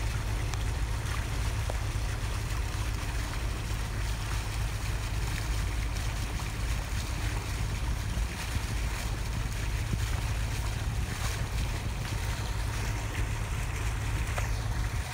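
Steady low drone of a motorboat's engine, heard from aboard while underway, with a hiss of wind and rushing water over it.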